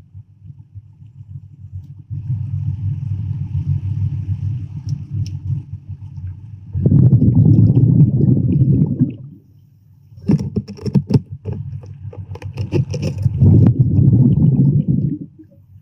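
Muffled water noise heard through an underwater camera housing: a low rumble with two louder surges of about two seconds each and a run of sharp clicks and knocks between them.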